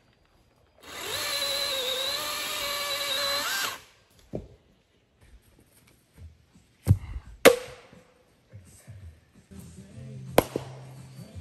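A chainsaw runs for about three seconds and cuts off suddenly. Then come sharp single blows of an axe and maul splitting firewood rounds, about five in all, two close together near 7 seconds in. Low background music comes in near the end.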